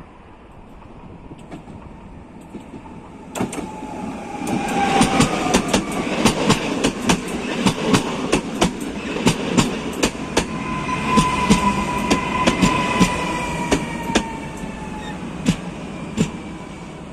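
Two coupled Koleje Małopolskie EN78 Impuls electric multiple units rolling in alongside the platform and braking to a stop. The wheels click over the rail joints, the clicks spacing out as the train slows. A whine falls in pitch as the train slows.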